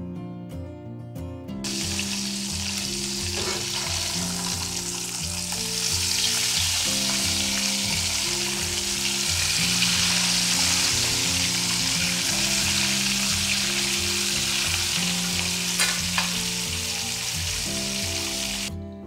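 Whole crabs deep-frying in hot oil in a pan: a dense, steady sizzle that starts about one and a half seconds in and cuts off just before the end, with a couple of faint clicks.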